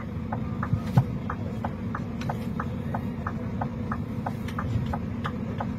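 Low steady hum of a vehicle's engine idling, with a regular light ticking about three times a second.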